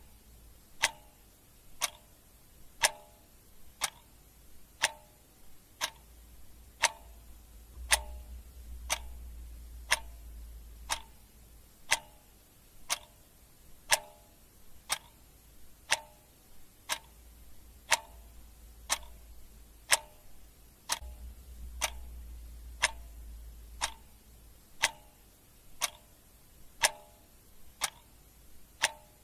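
Clock ticking steadily at one tick a second, in an even tick-tock rhythm.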